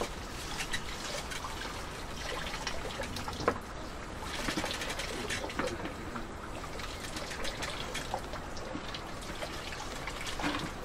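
Wet grated manioc (cassava) pulp being kneaded and pressed by hand on a round sieve, with liquid trickling through into the bucket below. A steady run of small wet clicks and dribbling.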